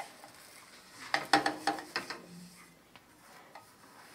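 Spatula knocking and scraping against a frying pan while a flour tortilla is lifted and turned, with a quick cluster of sharp clacks about a second in.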